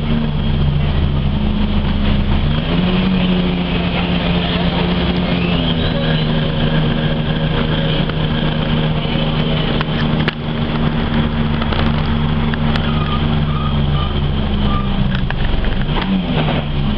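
Diesel engine of an Ikarus-435.17 city bus running under way, heard from inside the passenger cabin. Its note shifts in pitch a few times, around three and six seconds in and again near the end.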